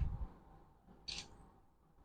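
Faint hand-work handling noises: a low bump at the start, then a brief crisp sound about a second in.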